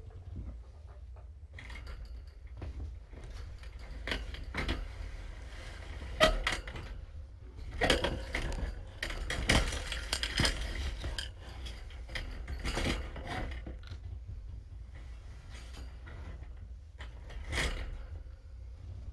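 A fabric floor covering being lifted and shuffled by hand, with rustling and scattered knocks and clatters over a steady low hum.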